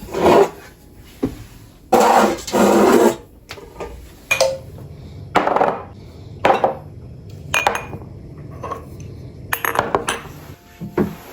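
Kitchen storage containers and jars being handled and set down, a series of separate clinks and knocks, some ringing briefly, with a couple of longer scraping or rustling sounds in the first three seconds.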